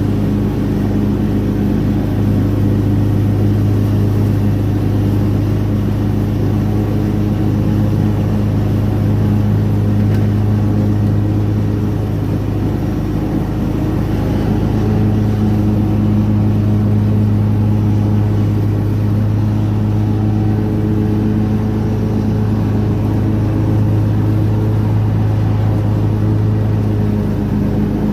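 A vehicle engine running at a steady speed, a constant low hum.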